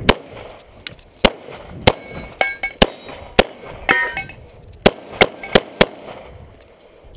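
A string of about a dozen pistol shots from an HK pistol, fired at an uneven pace with gaps of a third of a second to a second. A few shots are followed by a short metallic ringing, most clearly around two and a half and four seconds in.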